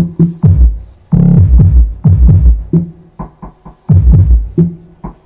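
Bass-heavy electronic music played loud through Mr Mcee 1200-watt speakers mounted inverted in an L-ported bass box, driven by an Ace CA5 power amplifier: deep bass notes and kick hits in rhythmic bursts with short breaks between.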